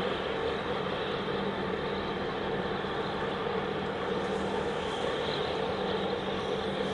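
Steady, unchanging engine drone with a constant low hum.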